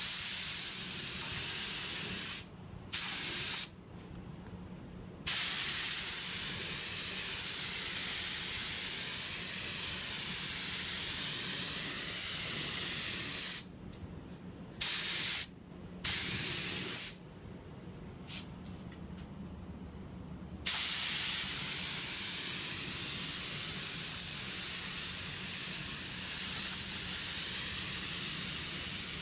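Harbor Freight automotive paint spray gun hissing as it sprays marine paint, in about six trigger-pull bursts, from short ones under a second to long passes of around eight seconds. A steady low hum carries on underneath between the bursts.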